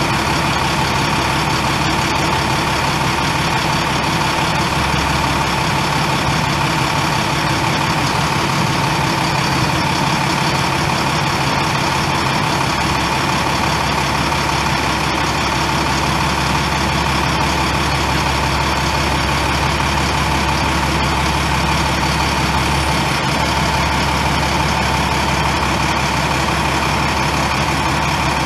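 International MaxxForce 10 9.3-litre inline-six turbo diesel engine of a bucket truck running steadily at idle.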